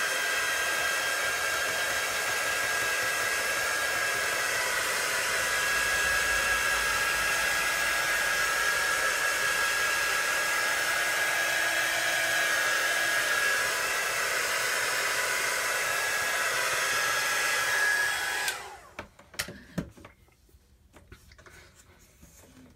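Small handheld hair dryer blowing on freshly applied chalk paste: a steady rush of air with a steady whine over it. It is switched off about 18 seconds in, followed by a few light knocks.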